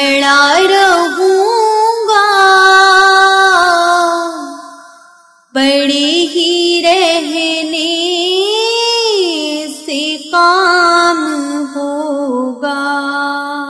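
A woman's voice singing an Urdu naat with no instruments, holding long melismatic notes that bend and slide in pitch. The voice fades away about four and a half seconds in and comes back on a new phrase a second later.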